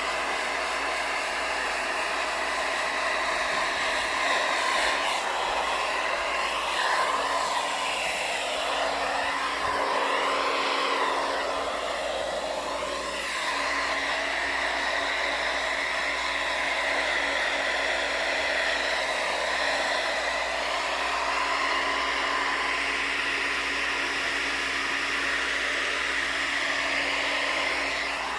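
Hair dryer running continuously while a dog's coat is blow-dried; a steady blowing whoosh whose tone shifts a little as it goes, with a faint low hum joining about a quarter of the way in.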